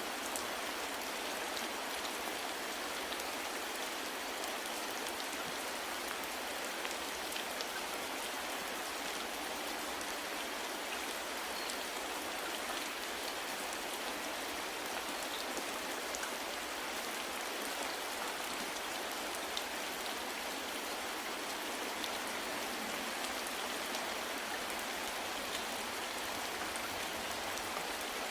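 Steady rain falling, an even hiss with faint drop ticks.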